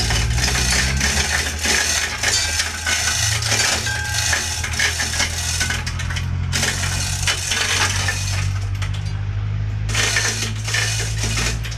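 Manual chain hoist hauling a truck's diesel engine upward: rapid metallic clinking and rattling of the chain through the hoist, with a couple of short pauses, over a steady low hum.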